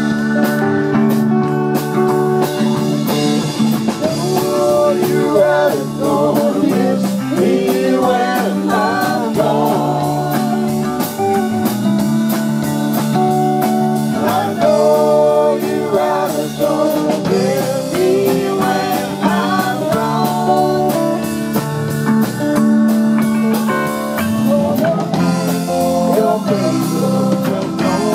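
Live rock band playing an instrumental jam: electric guitars and drum kit, with a lead guitar line bending notes over the steady groove.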